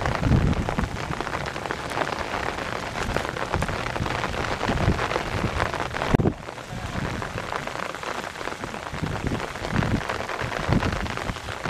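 Rain falling steadily, with irregular gusts of wind buffeting the microphone.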